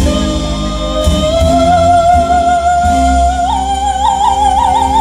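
A woman singing live into a microphone through PA speakers, in an operatic style over a backing track. She holds one long note that climbs slightly and then moves up into a wide vibrato about three and a half seconds in.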